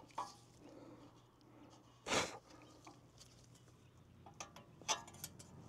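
Pliers working the parking-brake shoe springs inside the rear rotor hub: a short scrape about two seconds in, then a few light clicks near the end.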